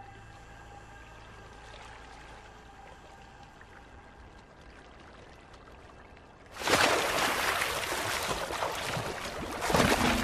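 A polar bear bursting up out of icy water with a sudden loud splash about two-thirds of the way in, followed by water sloshing and splashing as it surfaces with a seal it caught underwater. Before the splash there is only a faint background hum with a steady tone.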